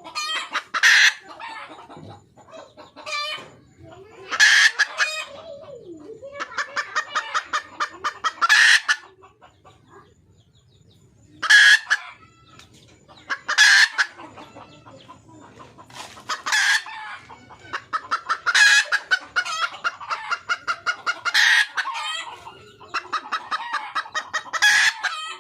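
Red junglefowl hen calling for a mate: quick runs of clucks that each build to a loud, sharp cackle, repeated every few seconds.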